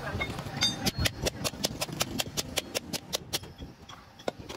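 Sharp clicks at an even pace of about three a second, stopping about three and a half seconds in.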